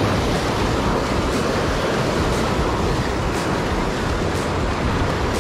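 Surf breaking and washing over shoreline rocks, with wind buffeting the microphone, a steady dense rush; a faint tick comes about once a second.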